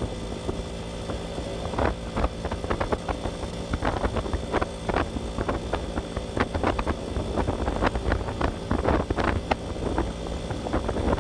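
Kawasaki HD3 125cc motorcycle cruising at a steady pace, its engine note even throughout, with heavy wind buffeting on the microphone.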